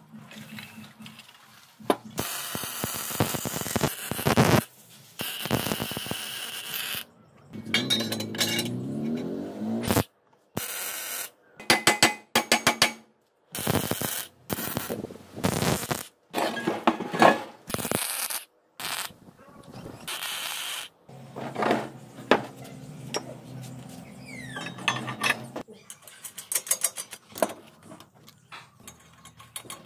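Metal fabrication sounds in short edited clips: steel parts knocking on a workbench, the crackle of a MIG welder, and a socket ratchet clicking rapidly as a bolt is tightened near the end.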